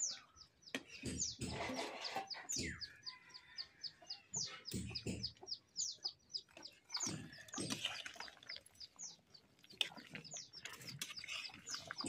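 Small birds chirping rapidly and repeatedly in short, falling notes, with a few lower clucking calls from chickens.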